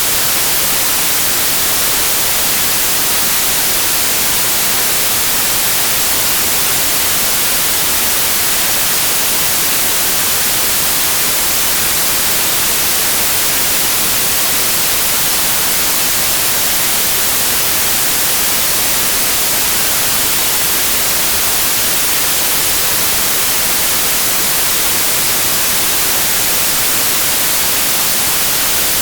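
Steady, unbroken white noise for tinnitus masking: an even hiss, strongest in the high range.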